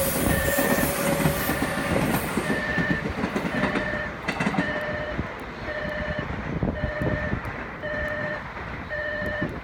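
Station platform train-approach warning alarm sounding a steady run of repeating electronic beeps while a train passes through. The train's rushing noise is loudest in the first couple of seconds and then dies down to a rumble under the beeps.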